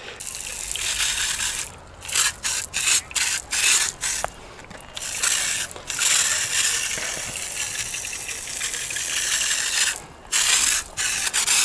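Pressurised garden pump sprayer loaded with paint, spraying with its valve wide open: a hiss that runs steadily for a few seconds at a time and elsewhere breaks into short, sputtering spurts, the sign that the tank is running out of paint.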